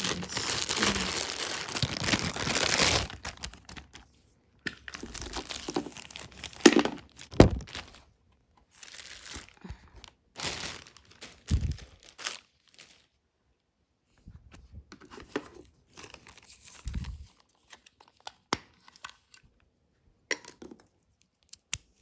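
Packaging being torn open and crinkled by hand while unboxing: a long rip over the first three seconds, then scattered crinkles, clicks and light knocks.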